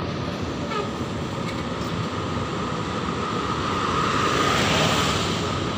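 Road traffic on a multi-lane road: a steady wash of tyre and engine noise, with a vehicle passing that grows louder about four to five seconds in and then eases off.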